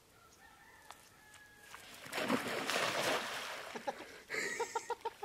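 Cast net splashing down onto pond water, with water sloshing as a man wades into the shallows. Near the end, a chicken clucking in a quick run of short calls.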